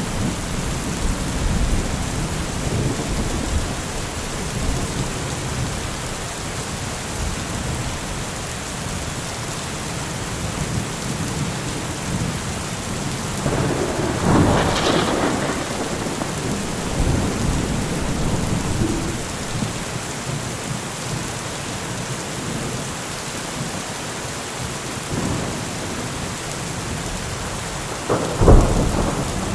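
Steady heavy rain with rolling thunder: a rumble swells about halfway through, and a sharp, louder thunderclap comes near the end.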